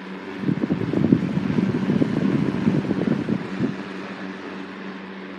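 Torcan 1163 10-inch box fan's shaded-pole C-frame motor running on medium speed with a steady hum, the air from the blades buffeting the microphone from about half a second in until nearly four seconds in.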